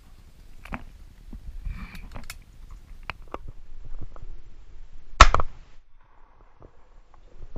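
A single shotgun shot about five seconds in, sharp and loud with a brief tail, amid faint scattered clicks and rustles.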